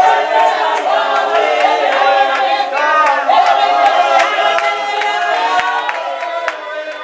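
A group of women singing together in chorus, voices overlapping without instruments.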